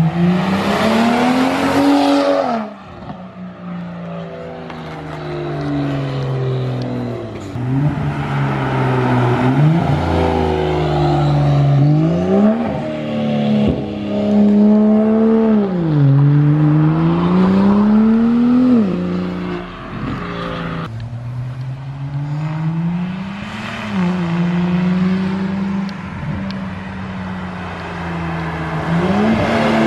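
Straight-piped exhaust of a BMW 335i's turbocharged inline-six, loud, revving up and falling back again and again as the car drives down the road. There are abrupt breaks between passes.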